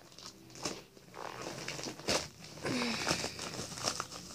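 Packaging rustling and crinkling with small clicks as a package is torn and opened by hand, the rustle getting denser and brighter about halfway through.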